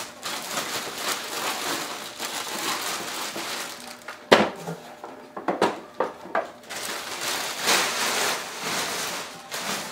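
Large clear plastic bag crinkling and rustling as it is pulled down off a car seat and bunched up, with a few sharper knocks, the loudest about four seconds in.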